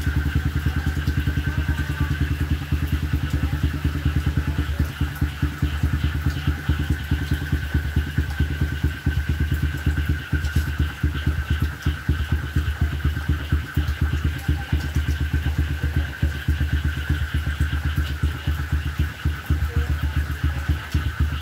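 A small engine running steadily at idle, pulsing rapidly and evenly.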